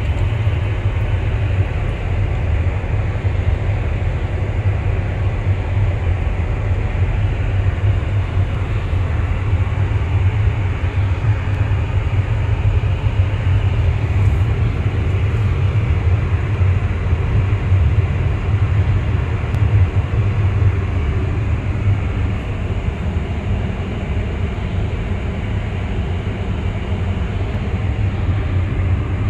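Airbus A320neo cabin noise in cruise: a steady low drone of engines and airflow with an even rush of air above it, unchanging throughout.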